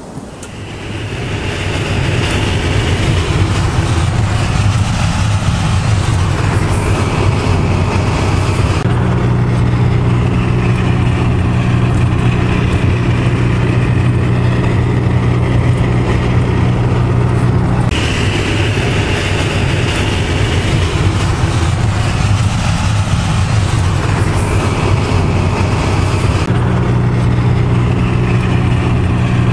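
Cabin noise inside a Winnebago LeSharo van driving on the road: steady road and wind noise with engine hum. The sound changes abruptly about 9, 18 and 26 seconds in. It alternates between stretches of loud hiss with a high-pitched buzz band and stretches where the hiss drops away and a low steady drone dominates.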